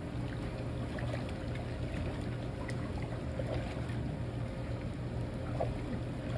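Water in a backyard swimming pool gently lapping and trickling, with small scattered splashes over a steady low hum.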